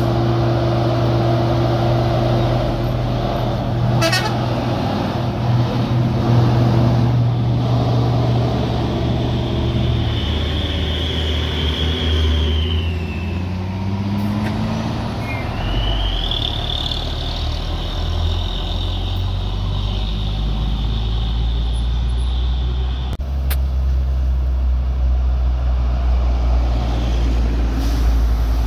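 Heavy truck engine running, with a high whine above it that falls away about halfway through and then rises again and holds while the engine's pitch shifts.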